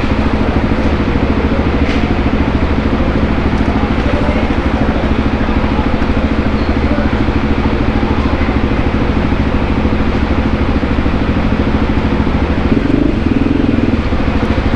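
Voge 300 Rally's single-cylinder engine running steadily at low revs.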